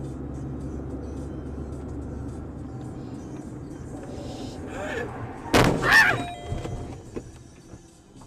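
Steady in-car road and engine noise from a moving car, then about five and a half seconds in a sudden loud bang of a collision, followed at once by a short shrill cry.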